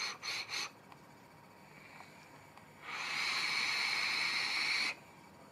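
An Aspire Cleito tank with an RTA coil deck, running at 45 watts on a 0.4-ohm coil, taking a test draw. From about three seconds in there is a steady hiss of drawn air and coil sizzle lasting about two seconds, a sign that it is firing properly. A few short soft sounds come right at the start.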